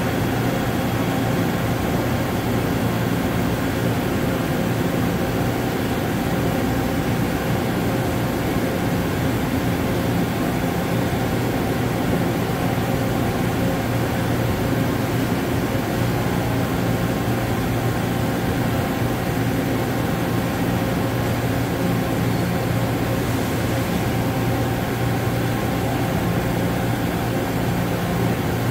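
A five-axis CNC machining centre running steadily: a constant hum with a few unchanging low tones under a hiss.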